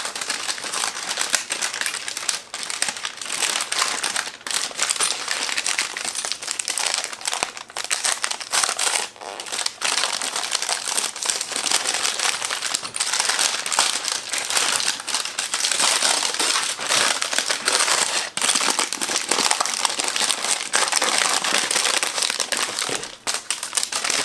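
A small plastic bag of hardware (nuts and bolts) being handled and opened, crinkling continuously and irregularly.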